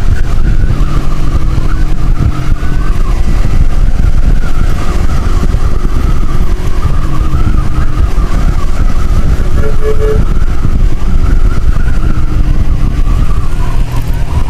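Motorcycle riding at speed: engine running under heavy, steady wind rumble on the microphone, with a faint wavering tone above it.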